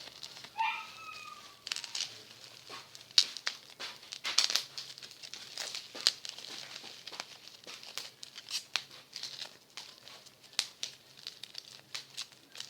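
Plastic bubble wrap being handled and popped by hand: crinkling with many sharp, irregular pops.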